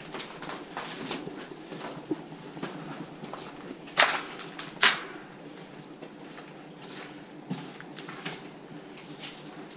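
Footsteps of someone walking at an irregular pace, with two sharper, louder steps about four and five seconds in.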